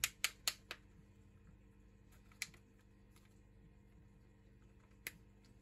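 Sharp clicks of a Xiaomi Redmi 9T's side buttons being pressed: four quick clicks, another about two seconds later and one more near the end.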